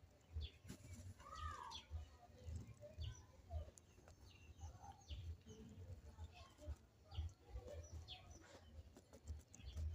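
Faint, scattered short bird chirps and calls, one a little longer and curving about a second in, over soft low bumps.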